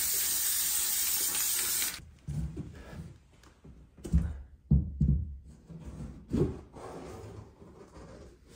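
Aerosol spray-adhesive can hissing steadily as glue is sprayed onto an OSB stair tread, the can running low, stopping suddenly about two seconds in. Then a few dull knocks as a vinyl plank stair tread is laid onto the step and pressed down.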